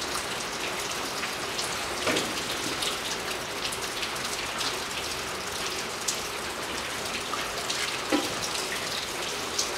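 Gear oil draining from the opened rear differential drain hole into a basin: a steady, rain-like pattering hiss with scattered faint ticks.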